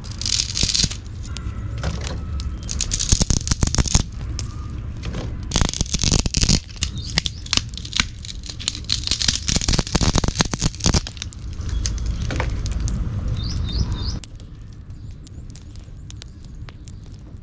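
Wood fire in a clay stove crackling, with many sharp pops and snaps over a low rumble, and scraping as long dry sticks are pushed into the flames. The sound drops suddenly to a quieter crackle about 14 seconds in.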